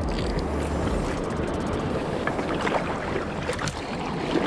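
River water rushing and lapping right at the microphone, with small splashes scattered through, and a low wind rumble in the first second or so.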